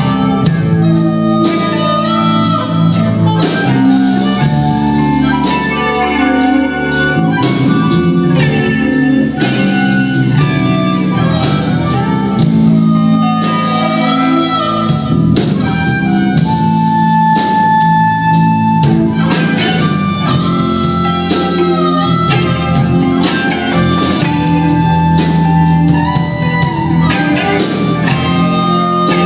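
Blues band playing an instrumental passage: electric guitar lines over a steady drum beat and bass, with one long held note a little past the middle.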